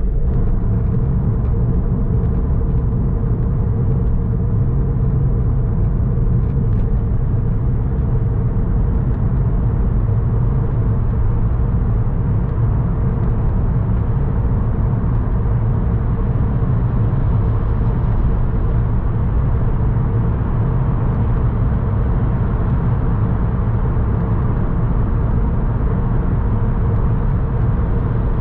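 Car driving on city streets, heard from inside the cabin: a steady low rumble of engine and tyre noise, with a faint even hum and no big changes.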